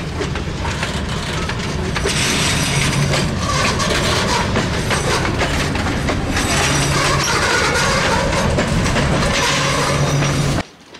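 Freight train of covered hopper cars rolling close past, loud, with steel wheels clattering over the rail joints. The sound cuts off suddenly near the end.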